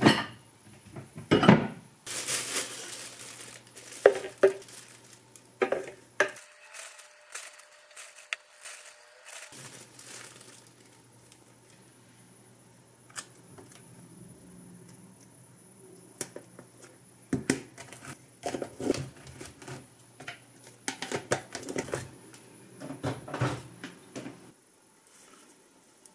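Clear plastic storage jars handled and set down on a stone countertop: scattered knocks and clicks. A crinkling rustle about two to four seconds in comes as label stickers are peeled and stuck on.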